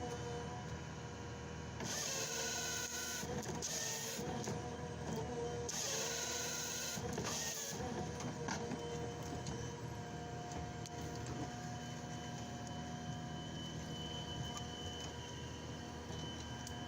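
Heavy forestry machine running steadily with whining hydraulic tones, broken by two bursts of hiss, the first about two seconds in and the second a few seconds later.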